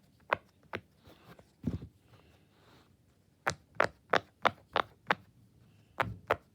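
Square silicone pop-it fidget toy having its bubbles pressed in one by one: a string of sharp little pops, with a quick run of about three a second in the middle.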